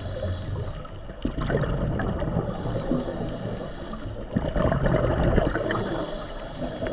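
Water sloshing and gurgling in surges every few seconds, as heard on an underwater camera.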